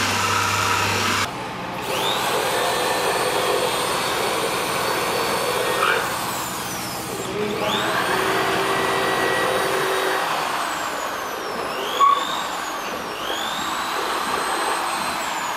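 Handheld electric polisher running on stainless steel sign letters: a steady motor whine over the grinding hiss of the pad on the metal. The motor spins up with a rising whine several times, about two seconds in, near eight seconds and twice near the end, and winds down once in the middle, with a short loud blip near twelve seconds.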